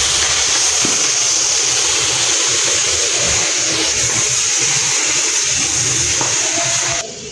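Food sizzling loudly in a hot frying pan: a steady, dense hiss that cuts off suddenly about seven seconds in.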